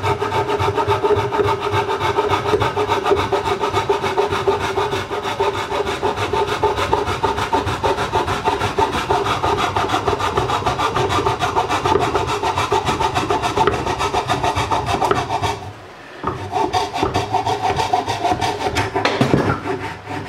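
Handsaw cutting into a softwood 2x4 by hand: fast, even back-and-forth strokes rasping through the wood, with a short break about three-quarters of the way through before the sawing resumes.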